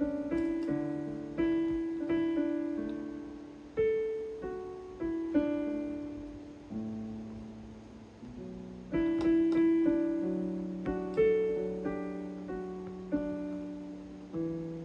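Casio CT-S1 portable keyboard played in a piano voice: slow chords and melody notes, each struck note ringing on and fading away.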